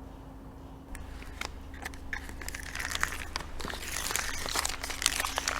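Roll flex hip roll being handled and pressed onto the hip, with crinkling and crackling that begin about a second in and grow denser.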